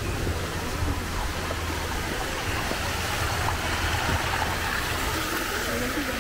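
Small artificial waterfall splashing over rocks into a stream, a steady rush that grows louder past the middle.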